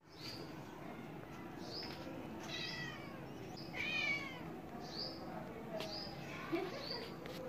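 Kittens mewing: short, high-pitched mews about once a second, with two longer, louder mews around two and a half and four seconds in.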